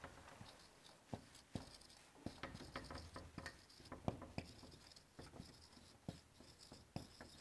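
Marker pen writing on a whiteboard: faint, irregular taps and scratchy strokes as the letters are formed.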